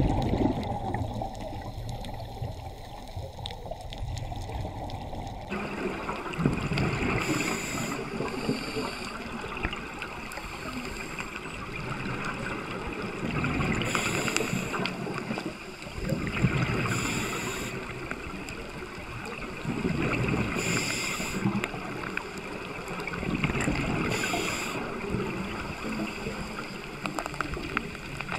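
Underwater water noise with a low rumble. About five seconds in the sound changes abruptly, and from then on a rushing surge of bubbles comes about every three and a half seconds, the rhythm of scuba divers breathing out through their regulators.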